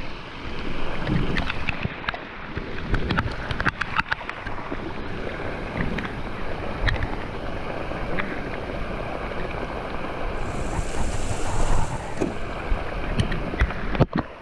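Heavy rain falling on the water and a small fishing boat, a steady hiss full of many small sharp taps, with wind buffeting the microphone.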